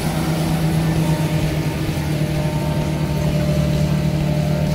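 Farm tractor's diesel engine running steadily with a low, even hum as it pulls a vine-root removal implement through the soil.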